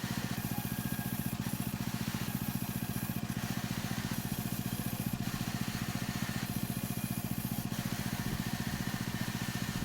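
Plywood cutting machine running steadily with a fast, even pulse under a low hum, while a hissing rush comes and goes about every second or two.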